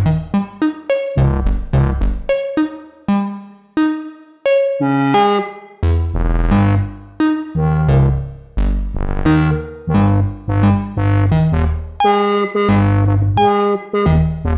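Eurorack modular synthesizer playing a clocked analog step-sequence: a run of short pitched notes that start sharply and die away, with bass notes under higher ones. The steps are driven by a Make Noise BRAINS and Pressure Points sequencer, with touch plates pressed by hand to jump between stages in time with the clock.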